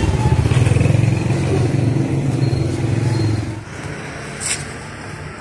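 Motorbike engine running close by, then dropping away about three and a half seconds in. A short sharp click comes near the end.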